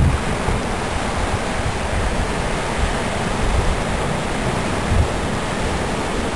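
Steady rush of choppy sea water washing around shoreline rocks, with irregular low rumbles of wind on the microphone.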